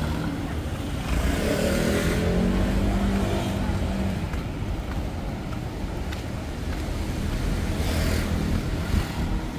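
A motor engine passing, loudest between about one and four seconds in, with a second, fainter engine near the end.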